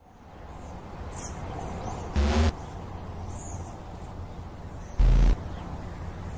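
Outdoor ambience with a few faint bird chirps, broken twice by a short, loud, low-pitched boom, about three seconds apart.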